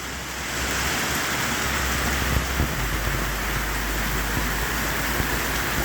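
Pouring rain falling steadily: a dense, even hiss of rain.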